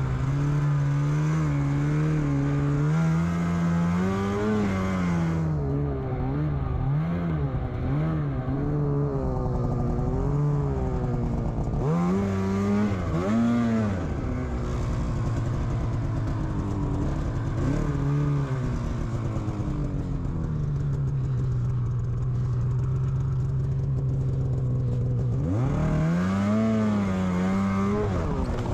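Snowmobile engine revving up and down in repeated bursts, settling to a steady idle for a few seconds, then revving again near the end, as the sled is worked through deep snow.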